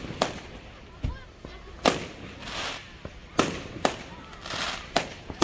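Fireworks going off: a string of sharp bangs at uneven intervals, about seven in five seconds, some trailed by a brief hiss.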